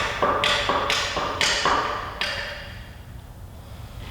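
Quick series of sharp metallic taps with a ringing tone, about four a second, stopping a little over two seconds in.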